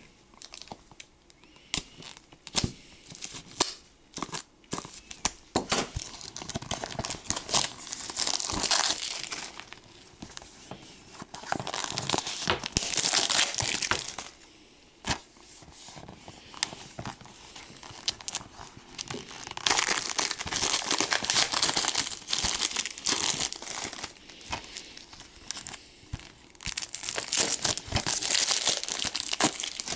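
Clear plastic shrink wrap being torn and crinkled off a DVD case, in four long crackly stretches with small clicks and taps between them.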